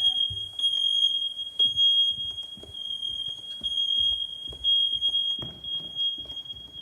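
Smoke alarm sounding a steady, piercing high-pitched tone, set off by cooking smoke. Low knocks and thumps of movement and handling sound underneath.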